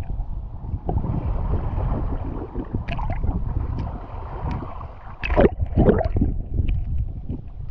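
Shallow seawater lapping and sloshing around a camera sitting half-submerged at the waterline of a pebble beach, with a couple of louder splashes about five and a half and six seconds in.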